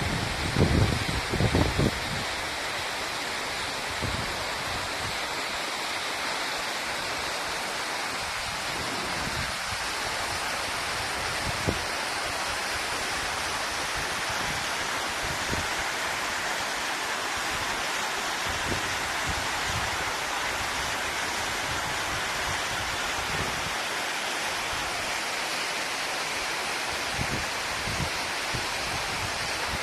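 Waterfall: a steady rush of falling water. Low gusts of wind buffet the microphone during the first two seconds.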